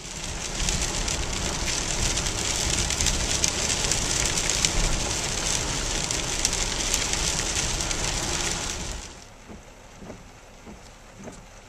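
Steady hiss of rain and tyres on a wet road, heard inside a moving car. It drops away to a much quieter background about nine seconds in.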